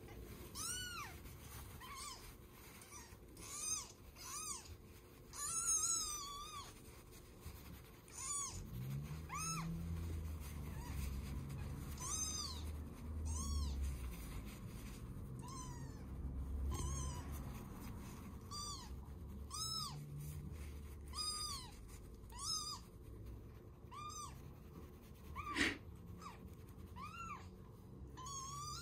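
Four-day-old kitten mewing over and over, short high cries about once a second, each rising and falling in pitch, while held and wiped with a tissue. One sharp click about three quarters of the way through.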